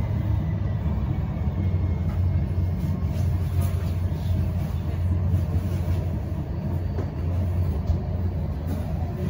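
Siemens Avanto tram-train in motion, heard from inside the passenger cabin: a steady low running rumble, with a faint steady high tone above it.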